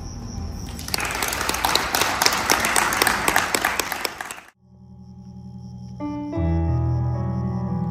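Audience applause for about three and a half seconds, cut off suddenly. Then a Kawai digital keyboard plays slow, sustained chords, changing chord about a second and a half later.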